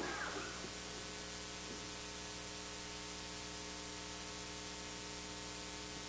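Steady background hiss with a low electrical hum. There is a faint brief sound right at the start.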